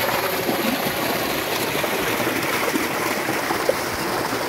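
Water from a running tubewell gushing out of a concrete outlet into a channel: a steady, even rush of splashing water.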